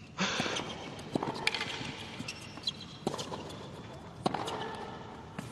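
Tennis rally on a hard court: a string of sharp racquet hits and ball bounces, roughly a second apart, over a low crowd hum.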